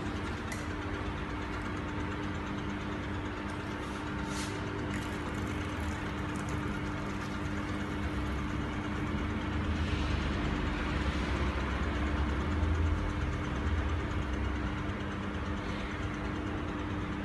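Banner seaming machine running with a steady mechanical hum. A low rumble grows louder for a few seconds past the middle, and a few faint clicks come about half a second and four seconds in.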